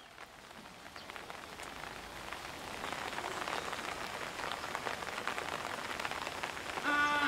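Heavy rain pouring down, fading in over the first few seconds, with many individual drops tapping. Near the end a brief pitched call cuts in over it.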